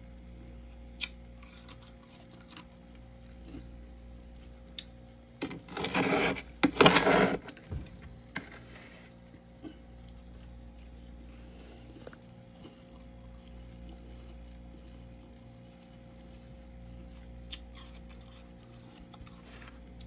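Freezer frost scraped with a metal spoon and crunched, in two loud bursts about six and seven seconds in and a smaller one just after, over a steady low hum with a few faint ticks.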